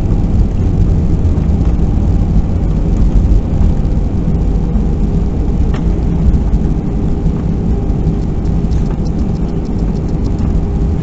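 Cabin noise inside a Southwest Airlines Boeing 737 just after landing: a loud, steady, low rumble of the jet engines and airflow, easing slightly toward the end.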